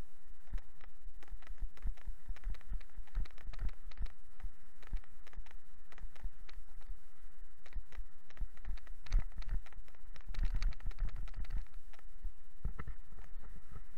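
Bicycle rolling over an asphalt road, heard through a bike-mounted camera: irregular low knocks and rattles from road vibration, thickest about nine to eleven seconds in.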